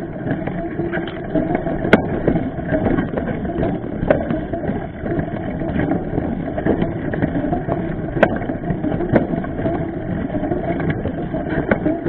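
Mountain bike riding a rough dirt singletrack, heard through an action camera mounted on the bike: a continuous rumble and rattle of the tyre and frame over the trail, with many small knocks and a few sharp clacks from bumps, the loudest about two seconds in and about eight seconds in.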